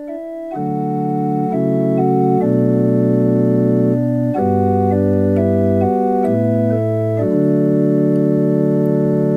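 Organ playing slow, sustained block chords that change every second or so: the introduction to a sung responsorial psalm refrain in D.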